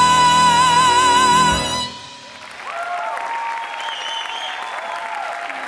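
A big band of saxophones, trumpets and trombones and a female singer end a song on a loud held chord, her note wavering with vibrato, and cut off together about two seconds in. Then an audience applauds and cheers.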